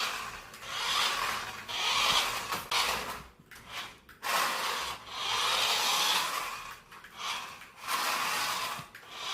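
Toy remote-control car driving under remote control, its small electric motor and gears whirring with the wheels rubbing on the floor. It goes in repeated bursts of a second or so, with short breaks between them, as the controls are pressed and released.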